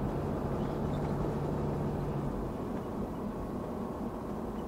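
Steady engine and tyre noise heard from inside a moving vehicle's cabin. A low steady hum fades out about two seconds in.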